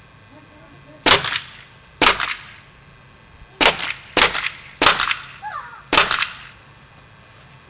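Paintball marker, chronographed at about 425 feet per second, firing six sharp shots, the balls splattering against a paintball mask's lens. The first two come about a second apart, then after a pause four more follow at roughly half-second to one-second intervals.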